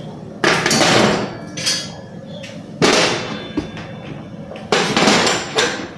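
Hard kitchen items being knocked and set down: several loud, sudden clatters, each with a short ringing tail.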